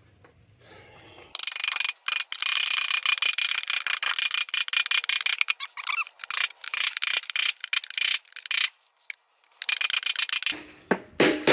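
Rapid, continuous mechanical clicking, high-pitched with no low end, lasting about nine seconds with a break of about a second near the end.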